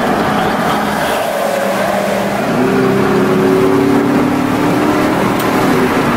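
A 2010 Chevrolet 2500 HD pickup's 6.0-litre Vortec V8 pulling under acceleration at freeway speed, heard from inside the cab. Its note climbs slightly for a few seconds, then drops back to a lower steady tone near the end, over constant wind and road noise.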